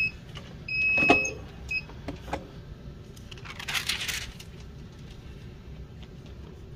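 A high electronic beep about a second in, with a sharp knock at its loudest point, then a few small clicks and a short hiss about four seconds in, over a steady low hum.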